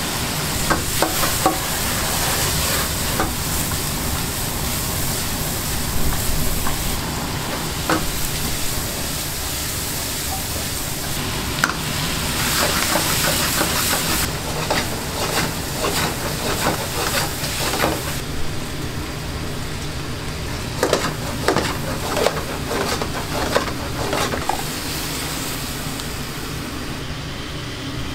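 Food sizzling and frying in a hot pan, with metal utensils repeatedly clinking and scraping against it. The sizzle fades somewhat about two-thirds of the way through.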